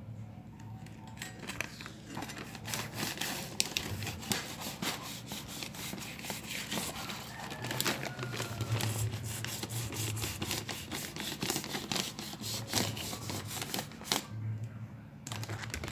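Paper mailer envelope being cut and torn open with a sharp blade: a busy run of crinkling, scraping and tearing crackles.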